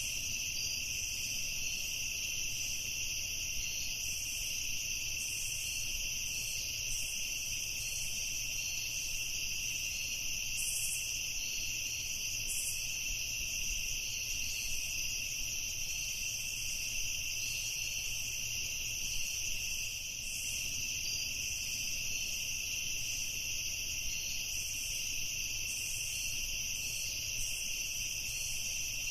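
Night chorus of crickets chirping, a steady high-pitched trill that does not let up.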